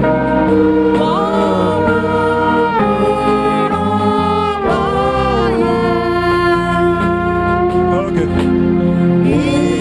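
Gospel worship music: a congregation or choir singing with live band accompaniment, held notes and gliding vocal lines over a steady backing.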